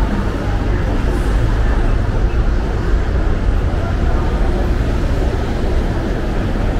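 City street ambience: a steady rumble of traffic, heaviest in the low end.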